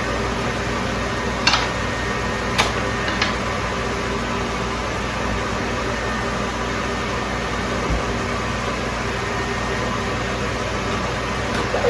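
Steady hum of a screen-printing conveyor dryer's fan and belt motor running, with a few sharp clicks between one and three seconds in.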